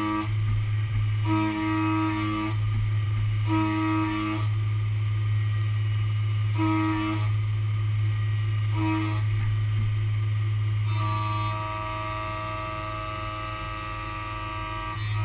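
Haas Super Mini Mill 2 milling aluminium with a 12 mm Iscar end mill at 6750 rpm on a 2D contour pass. A steady low hum runs under a pitched cutting whine that sounds in stretches of about a second as the cutter engages the part, then holds continuously from about eleven seconds in.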